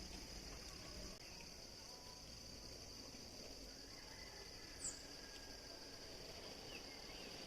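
Faint, steady, high-pitched chorus of insects such as crickets in a field, with a brief high chirp about five seconds in.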